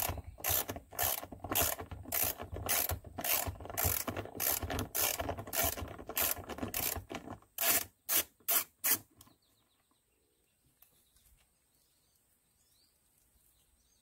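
Hand socket ratchet backing out a bolt, clicking in a steady rhythm of about two strokes a second, a little quicker at the end. It stops about nine seconds in as the bolt comes free.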